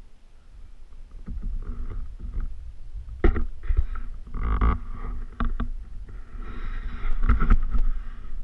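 Kayak being paddled: paddle strokes splashing in the water, with several sharp knocks on the hull and a low rumble.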